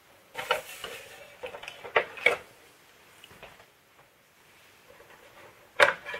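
Plastic shipping scale being handled and turned over on a tabletop: a few scrapes and knocks in the first couple of seconds, then a sharp click near the end as hands work its underside.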